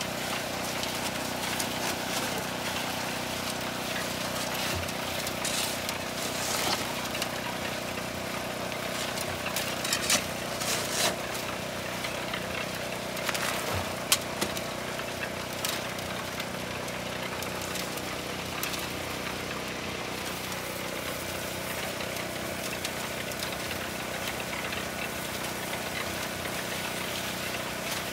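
Portable generator's engine running steadily, powering an electric concrete mixer whose drum turns with concrete mix tumbling inside. Several short shovel scrapes and knocks stand out as mix is shoveled into the drum, between about five and sixteen seconds in.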